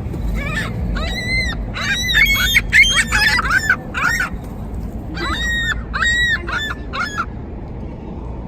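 Seagulls calling: a rapid run of short, harsh squawks, several birds overlapping, in two bursts with a brief lull in the middle.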